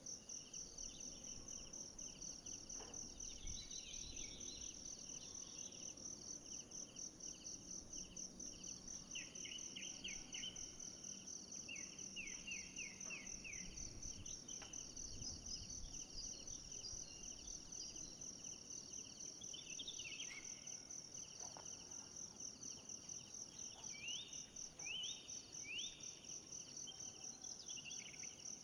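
Forest ambience: a steady, fast-pulsing, high-pitched insect chorus, with a bird calling several times in short runs of quick notes.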